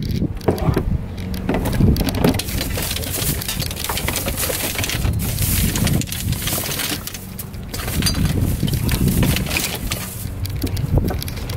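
Knocks and clatter of household items being shifted and packed into an SUV's open cargo area, over a steady low rumble.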